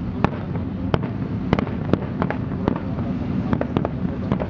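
Aerial fireworks shells bursting overhead: about a dozen sharp, irregular reports over a steady low background din.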